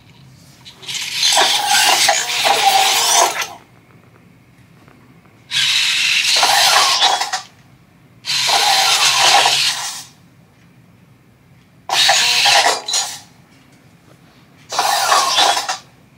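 Servo motors of a Robosen Optimus Prime robot whirring in five separate bursts, each one to two and a half seconds long, as the robot moves its arms and body through a programmed pose sequence.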